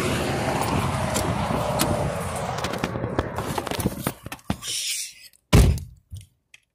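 Steady highway road and wind noise, then a few small clicks and knocks as someone climbs into a Chevrolet car, and the car door shuts with a heavy thump about five and a half seconds in.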